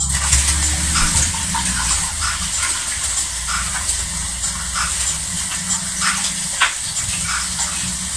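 A cat eating from an open can of salmon: small wet chewing and licking sounds about twice a second, over a steady rushing hum.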